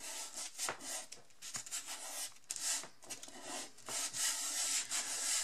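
Hands rubbing and pressing a sheet of glitter paper flat onto a card base, pressing it down so the fresh glue takes. It makes a dry, scratchy, papery rubbing in repeated strokes.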